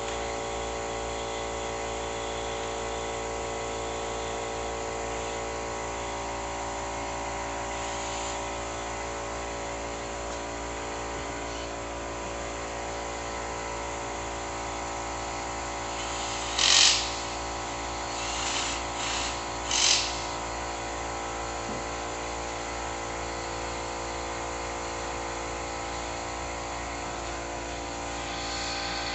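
Steady hum of several fixed tones, with four short bursts of a cordless drill driver about two-thirds of the way in, the loudest first and last.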